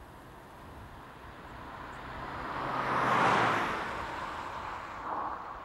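A vehicle passing by out of sight: a rushing noise that swells to its loudest about three seconds in, then fades away.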